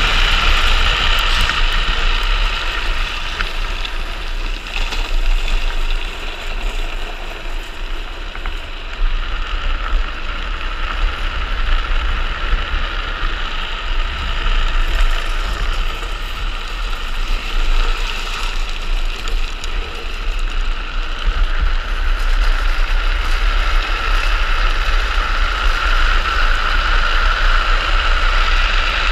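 Steady wind rush buffeting a helmet-mounted camera, mixed with the rolling roar of a speed trike's wheels on asphalt at downhill speed; it eases a little a few seconds in and again past the middle.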